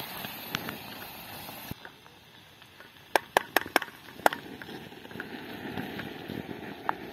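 Wooden spatula stirring and scraping poha in a metal camping pot, with a quick run of five or six sharp taps against the pot about three to four seconds in, over a steady background hiss.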